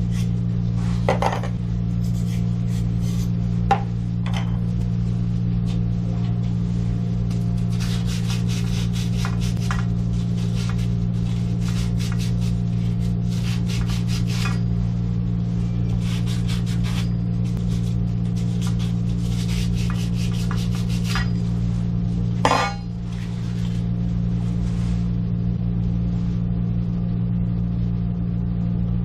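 Scattered metal clinks, rattles and scrapes over a steady low hum, with a sharp knock just under 4 s in and a louder clatter about 22.5 s in.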